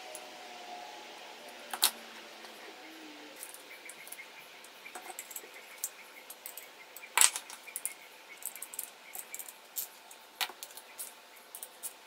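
Small metal clinks from fitting a nut and bearing onto a bolt through an aluminium bar, then the light, rapid clicking of a ratcheting wrench as the nut is tightened, with a few sharper metal clinks standing out.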